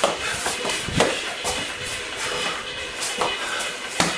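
Sparring blows landing: gloved punches and kicks striking bodies, a handful of sharp hits at the start, about a second in, and near the end.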